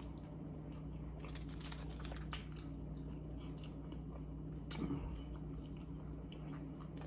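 Close-miked chewing and biting: soft wet mouth clicks scattered irregularly, a little louder about five seconds in, over a steady low hum.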